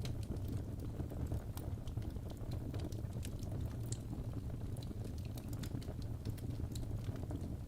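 Wood fire burning in a fireplace: a steady low rumble with irregular sharp crackles and pops.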